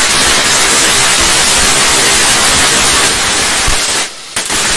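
Novelty fountain firework spraying a column of sparks, giving a loud, steady hiss that drops out briefly near the end.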